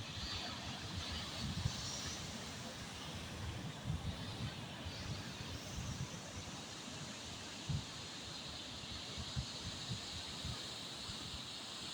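Wind buffeting the microphone in uneven low gusts over a steady hiss.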